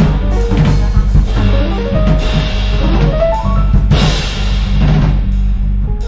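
Live jazz band playing: drum kit hits and cymbal crashes over sustained electric bass notes, with short rising runs of notes on the keys about two to three seconds in. The trumpet is not playing.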